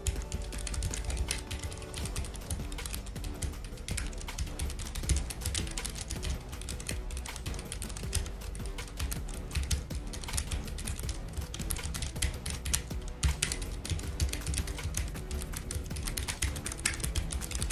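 Typing on a Keychron K3 low-profile mechanical keyboard with red linear switches: a fast, uneven run of key clicks, rather soft, with background music underneath.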